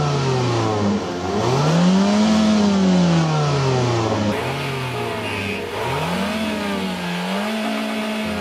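Mazda 323F hatchback's engine revved in free-revving blips at the exhaust: the pitch falls, climbs to a peak about two seconds in, sinks again, then rises once more about six seconds in and is held high near the end.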